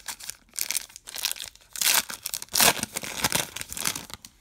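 Foil wrapper of a 2020 Topps Star Wars The Rise of Skywalker trading-card pack being torn open and crinkled as the cards are pulled out, in a series of rustling tears, loudest about two and a half seconds in.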